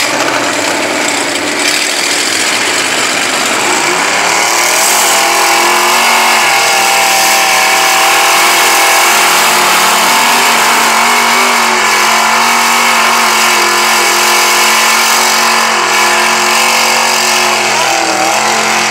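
Truck engine running loud and hard, its pitch climbing about four seconds in and then holding with small wavers.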